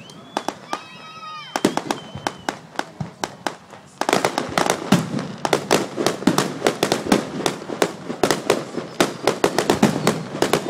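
Fireworks display: aerial shells bursting in a string of sharp bangs and crackles. About four seconds in the bangs come much faster and louder, merging into a near-continuous volley.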